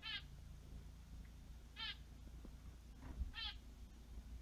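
A finch calling three times, about a second and a half apart; each call is short and high, with a rapid waver.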